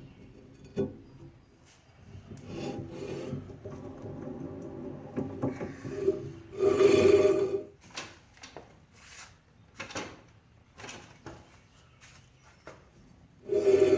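Brake rotor being worked onto a front hub: rough metal scraping and rubbing in several strokes, with clicks and knocks between them. The loudest scrape comes about seven seconds in and another near the end. It is a tight fit, with rust keeping the bolts from going in.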